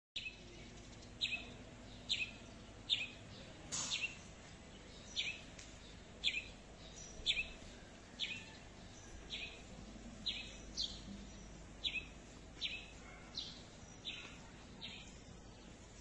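A bird chirping over and over: short, falling chirps, a little more than one a second, faint against a low background hiss.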